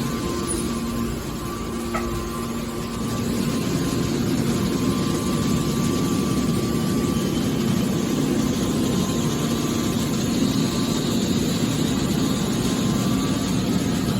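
Hydraulic can baler running: a steady mechanical hum from its pump and motor, rising a little in level after about three seconds.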